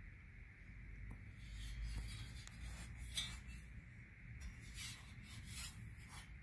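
Faint handling noise: hands turning a chrome-plated steel headlight bezel, rubbing and scuffing against the metal and the quilted blanket, with a sharper scuff about three seconds in, over a low steady hum.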